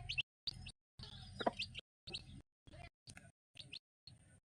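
Faint bird chirps: short, high calls repeating. The sound cuts in and out with brief silent gaps throughout.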